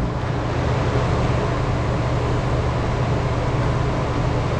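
Steady indoor background noise: a constant low hum with an even hiss, like room ventilation running.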